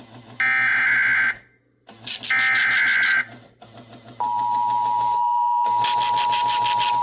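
Emergency Alert System SAME data header: two buzzy bursts of warbling data tones, each about a second long, the last of a three-burst header. About four seconds in, the steady EAS attention tone starts, and a fast pulsing beep joins it about six seconds in. Together they open a Special Marine Warning broadcast.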